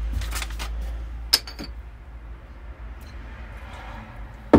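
A glass beer bottle handled over a wooden table: a few light knocks and a short glass clink about a second and a half in, then a sharp knock near the end as the bottle is set down on the wood.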